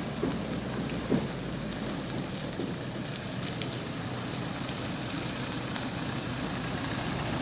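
2019 Toyota Fortuner VRZ TRD diesel SUV rolling slowly over a dirt road: a steady low engine hum and tyre noise on the dirt, with a few faint crackles.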